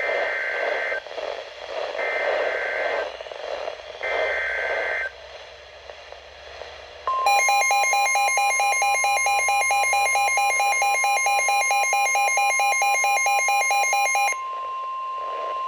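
NOAA Weather Radio alert signal introducing a new severe thunderstorm warning. It opens with three one-second bursts of SAME digital header tones warbling between two pitches, over radio hiss. About seven seconds in the steady warning alarm tone starts, and for about seven seconds a harsher pulsing alarm with many overtones sounds on top of it.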